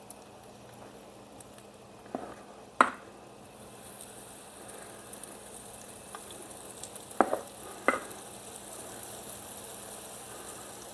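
Lemon ricotta pancake batter sizzling in butter on a hot griddle pan, the sizzle picking up a few seconds in as more batter goes down. A few sharp clicks of the metal measuring scoop against the stainless steel mixing bowl stand out above it.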